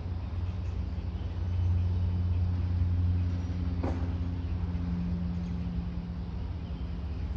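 Steady low mechanical hum, like an engine or machinery running, with a single click about four seconds in.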